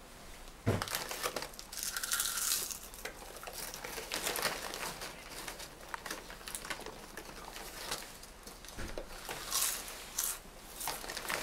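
Toothbrush scrubbing teeth close up: an irregular, scratchy brushing noise, opened by a sudden thump about a second in.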